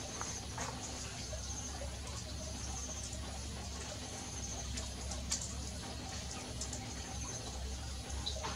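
Small birds chirping in the background: short, high, trilled chirps several times over a steady low rumble.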